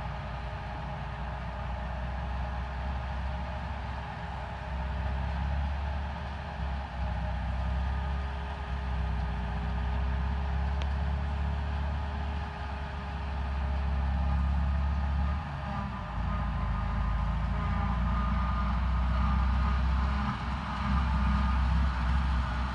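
Tractor engine running steadily as it tows a loaded silage trailer across the field, drawing nearer and growing gradually louder.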